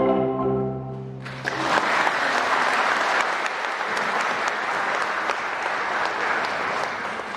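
A kolintang ensemble's final chord rings out and dies away over about the first second, then applause starts and carries on steadily, easing slightly near the end.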